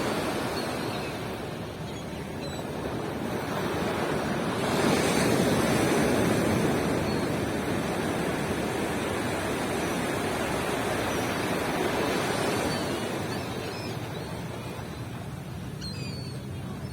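Ocean surf washing onto a beach: waves break and rush in, swelling to their loudest about five seconds in and again around twelve seconds, then easing off.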